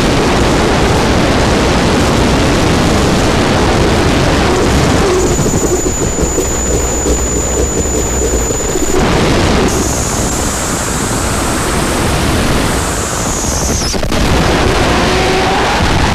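Harsh noise music: a loud, dense wall of distorted noise broken by abrupt cut-up edits every few seconds. A steady high whine runs through the middle, and a high whistle falls in pitch just before a sharp cut near the end.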